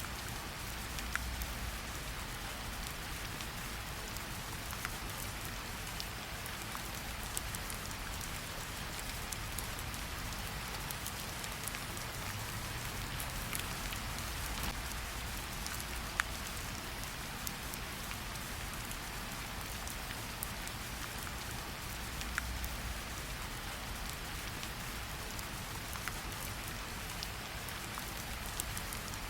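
Steady rain falling, a constant hiss with scattered single drops ticking through it.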